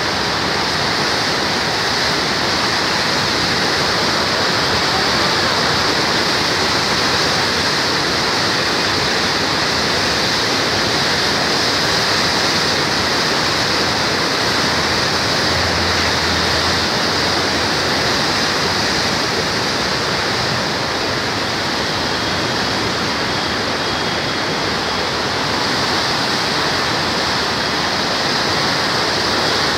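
The Saptakoshi River in flood, rushing and churning past the Koshi Barrage: a loud, steady rush of turbulent floodwater.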